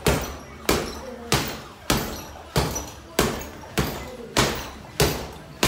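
Boxing-gloved punches landing on a hanging heavy bag in a steady rhythm, about one and a half hits a second, each a sharp thud that dies away quickly.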